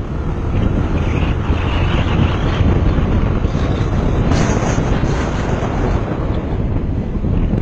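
Motorcycle on the move, its engine running beneath heavy wind rush on the bike-mounted microphone.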